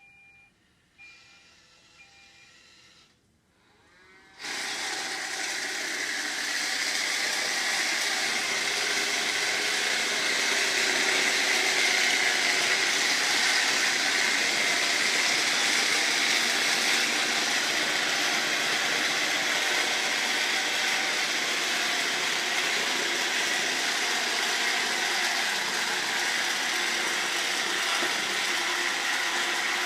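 Roomba robot vacuum running with a steady, loud abnormal mechanical noise that sets in about four seconds in, after three short beeps.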